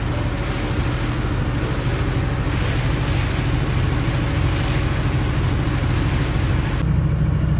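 Steady engine hum and road noise inside a moving vehicle, with an even hiss over it. About seven seconds in, the hiss falls away and the low hum grows stronger.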